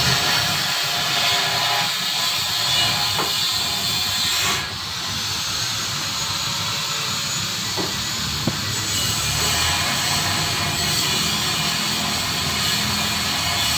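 A steady, loud hiss that eases slightly about four and a half seconds in, with a couple of faint clicks.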